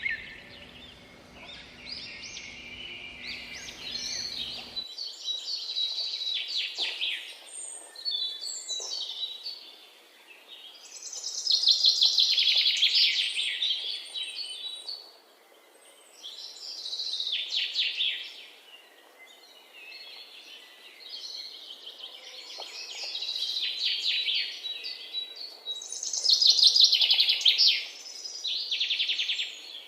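Birds chirping in quick runs of rapid high notes, one burst every few seconds.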